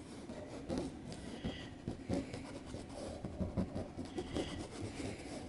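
Flat paintbrush rubbing acrylic paint across cloth stretched taut in an embroidery hoop, blending it in: faint, irregular scratchy strokes with a few light ticks.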